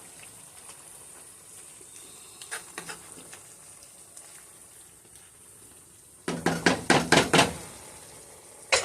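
Cubed beef simmering in its juices in a pan with a faint sizzle, then a spoon stirring, scraping and knocking against the pan in a quick run of strikes about six seconds in, and once more near the end.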